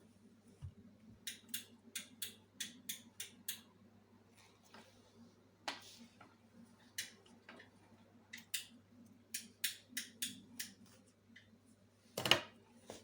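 Short, sharp clicks from hands-on sewing work, in runs of about three a second with pauses between, over a steady low hum. One louder knock comes near the end.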